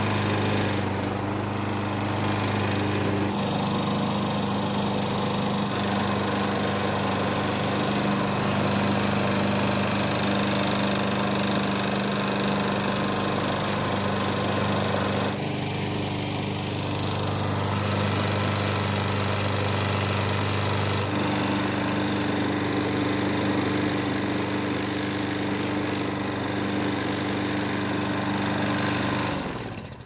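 John Deere walk-behind lawn mower engine running steadily, its note shifting slightly a few times, then dying away at the very end. The engine is running again now that water and debris have been cleared from its carburettor.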